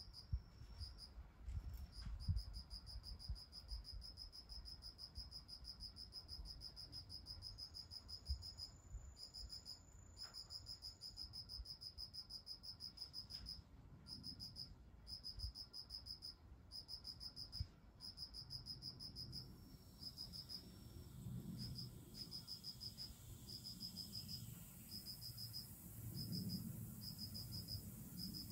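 An insect trilling steadily at a high pitch, broken by a few brief pauses, then changing in the second half to short chirps repeated a little under once a second.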